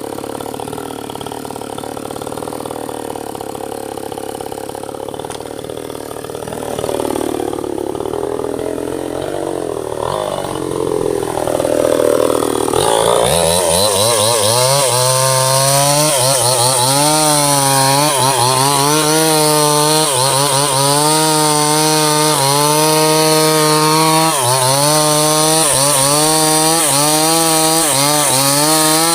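Two-stroke chainsaw cutting a large teak trunk: it runs more quietly for the first dozen seconds, then goes to full throttle, its pitch dipping and recovering every couple of seconds as the chain works through the wood.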